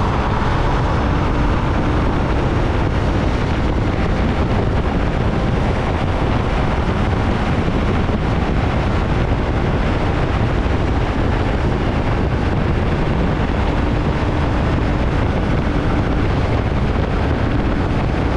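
Heavy, steady wind rush buffeting the camera microphone on a motorcycle at freeway speed. Underneath it is the drone of the 2017 Triumph Tiger 800 XCA's inline-three engine and tyre noise.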